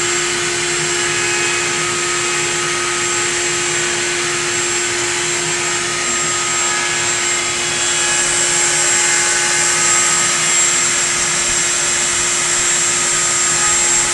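A metal lathe turning a tapered peg and a CNC router running at the same time, making a steady mechanical hum with a constant tone and a high whine, slightly louder past the middle.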